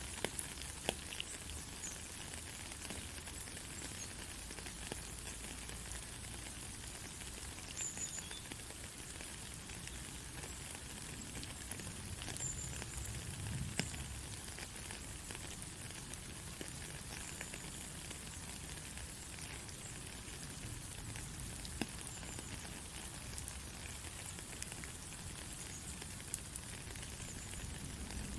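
Steady rain falling, an even hiss with scattered individual drop clicks.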